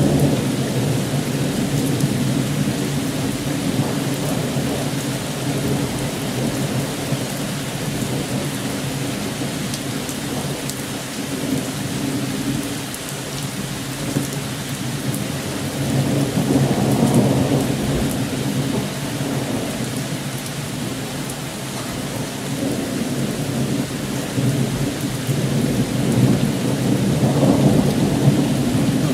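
Thunderstorm: rain falls steadily while thunder rumbles, swelling about halfway through and again near the end.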